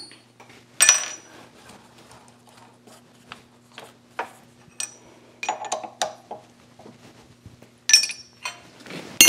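Steel tooling clinking and clanking on a lathe as a drill is fitted into the tailstock drill chuck: a string of sharp metallic clinks with a short ring, the loudest near the end. A faint steady low hum runs underneath.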